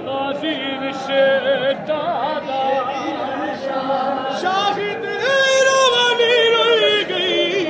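Male voice singing a noha, a Shia mourning lament, in long held notes with a wavering pitch; the singing grows louder about halfway through.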